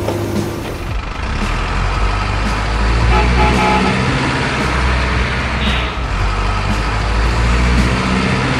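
Heavy diesel truck engine sound running steadily as a low rumble, with a brief short hiss about six seconds in.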